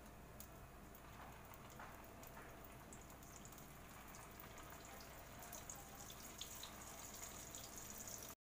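Shami kababs frying in shallow oil in a pan, giving a faint sizzle with scattered crackles that grow busier over the last few seconds.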